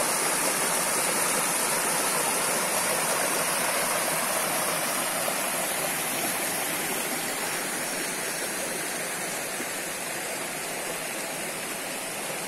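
Small stream rushing and splashing over rocks and a low stone cascade: a steady water noise that eases slightly in loudness after about halfway.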